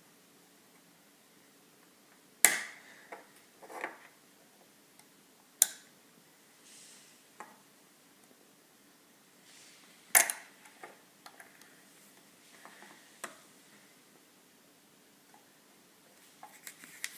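Plastic Lego pieces clicking and knocking as they are handled, in scattered single clicks. The three loudest come about two and a half, five and a half and ten seconds in, with fainter taps between.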